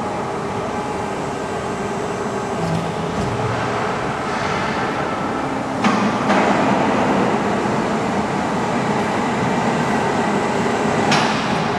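Hydraulic press brake running: a steady mechanical hum and rumble from its hydraulic pump unit, with a sharp clack about six seconds in, after which it runs louder, and another clack near the end.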